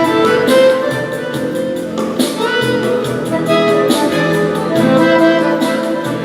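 Instrumental music: a melody of held notes over a steady beat.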